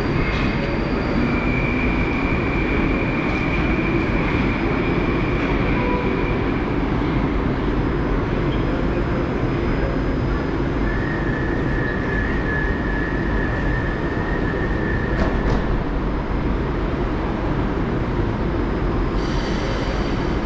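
Moscow metro 81-765 'Moskva-2019' train standing at the platform, giving a steady running noise. A thin high whine comes in for several seconds near the start and again around the middle.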